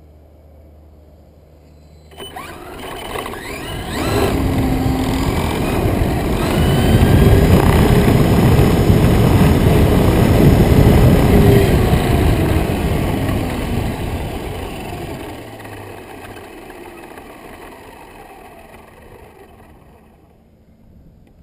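Radio-controlled model airplane's motor and propeller: a whine that rises in pitch a couple of seconds in, swells into a loud rumble that holds for several seconds, then fades away.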